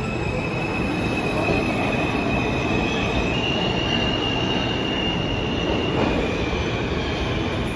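New York City Subway R160A-1 train departing the platform and accelerating into the tunnel: a steady rumble of wheels on rail, with a thin high-pitched wheel squeal that shifts pitch a couple of times.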